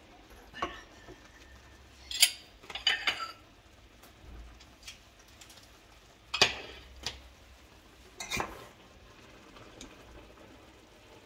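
Kitchen utensils (plastic measuring cups and a fork) knocking and scraping against a stainless steel pot while cooking water is scooped out of the boiled noodles: a handful of separate clinks and short rattles, the sharpest about two seconds and six and a half seconds in.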